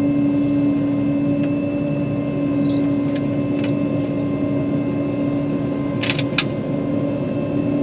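John Deere 9500 combine running steadily, heard from the cab as a constant drone with a strong even hum. Two short sharp clicks sound about six seconds in.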